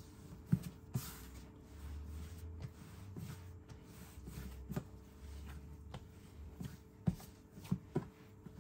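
Scattered soft knocks and thumps, about a dozen at irregular intervals, over a low steady hum.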